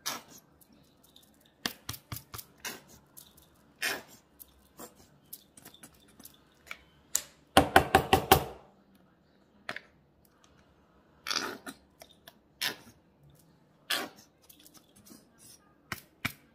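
Plastic squeeze bottle of yellow mustard squirting onto raw turkey pieces, with scattered short clicks and splats from the bottle and the plastic containers. About halfway through comes a loud, quick stutter of pops lasting about a second.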